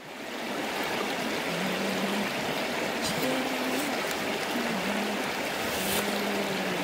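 Shallow stream flowing and rippling, a steady rush of water.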